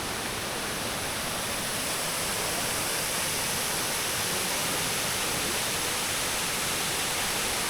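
Waterfall pouring down, heard close up at its base: a steady, unbroken rush of falling water.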